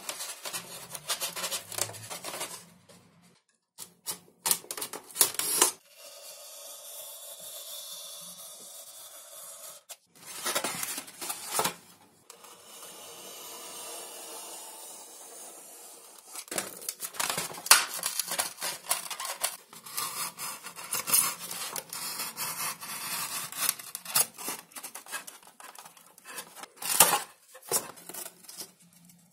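Hands rubbing and pressing Depron (XPS) foam, with crackly handling noise and sharp clicks. In the middle a craft knife is drawn along a steel ruler through the foam sheet in two long, steady scraping cuts.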